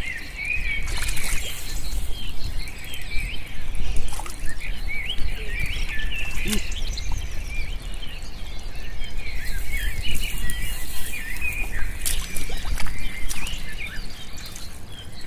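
Small birds chirping busily and continually, with occasional splashes and squelches of hands working through shallow water and mud.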